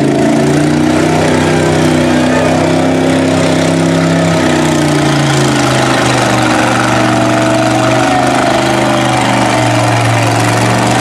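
Lifted mud truck's engine running hard under load as the truck pushes through deep mud on tractor tyres. Its pitch drops a little about halfway through, then holds steady.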